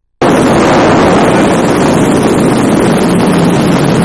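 Steady, loud cabin noise of a small three-seat helicopter in flight, engine and rotor drone mixed with wind on the microphone. It cuts in abruptly just after the start.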